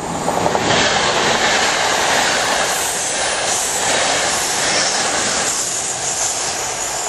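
VR InterCity train of double-deck coaches hauled by an electric locomotive passing close by at speed: a loud rush of wheels on rail and air that swells within the first second and holds, the locomotive at the tail going by near the end.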